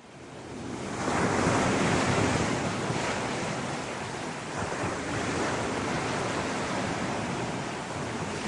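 Sea surf washing against a rocky shore: a steady rushing that fades in over about the first second, then swells and eases gently.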